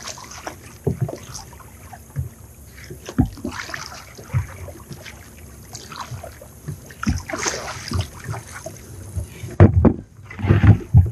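Kayak paddle strokes at sea: the blade dipping and splashing in the water about once a second, with short knocks, growing louder and busier near the end.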